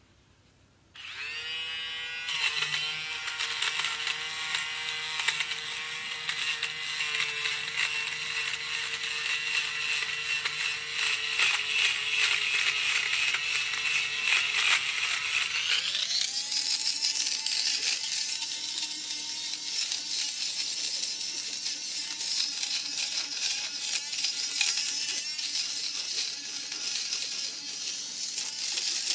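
Small battery-powered fabric shaver, run on two AA batteries, switching on about a second in and whining steadily as its rotating blade behind a mesh guard shaves pilled fuzz off upholstery fabric, with many small clicks over the whine. About halfway through, its pitch steps up and stays higher.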